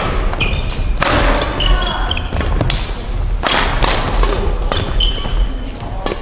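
Badminton rally: a string of sharp racket-on-shuttlecock hits, including a hard smash, echoing in a large gym hall. Short high squeaks of court shoes on the floor come between the hits.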